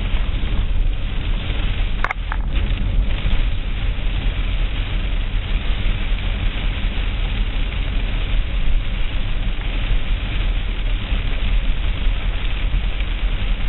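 Steady rumble and hiss of a car driving through a rainstorm, with a brief click about two seconds in.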